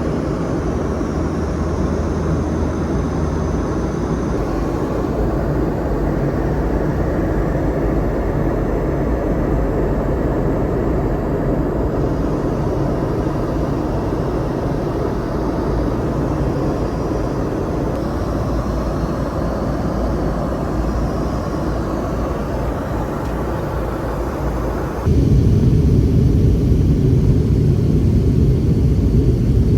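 Cabin noise inside a Boeing 717-200 in flight: a steady, loud rumble from its rear-mounted Rolls-Royce BR715 turbofans and the airflow. About 25 seconds in it shifts suddenly to a louder, deeper rumble.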